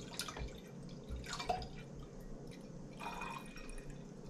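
Wine pouring from a large bottle into a stemmed glass, splashing and gurgling in three spurts as the glass fills.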